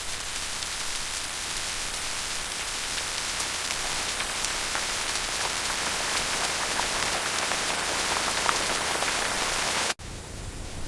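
Steady rain: an even hiss with scattered drop taps. It cuts off abruptly near the end, leaving a fainter, duller hiss.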